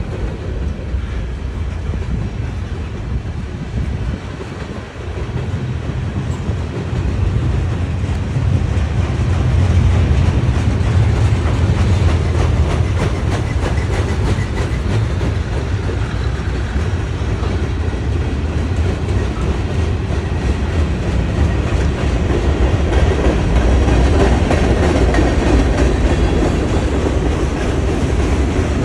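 Norfolk Southern freight train rolling past, its wheels clacking over the rail joints over a steady low rumble. It grows louder about seven seconds in.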